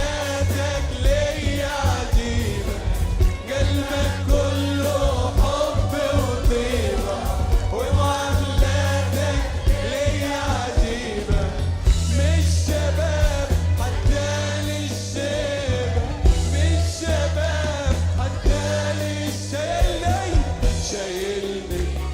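Arabic Christian hymn: singing over a band accompaniment with a steady bass and beat.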